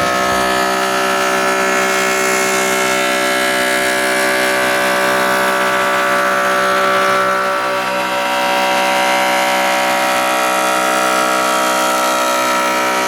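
Oscillating multi-tool running steadily with an even, high-pitched buzz that holds level, dipping slightly about eight seconds in.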